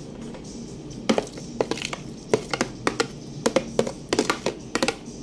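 Irregular sharp clicks and knocks of kitchenware, a few a second from about a second in, as cubed red gulaman is tipped from a plastic container into a stainless steel bowl of fruit salad.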